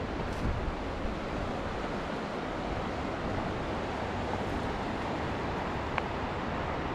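Steady rushing wind, with a brief click about six seconds in.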